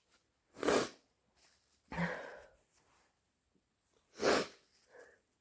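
Thick, wet sniffles through a congested nose: three short, sharp sniffs about one and a half to two seconds apart, then a fainter one near the end.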